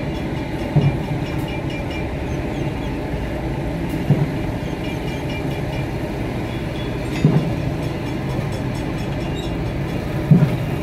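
A steady, low mechanical rumble with a dull thump about every three seconds, four in all.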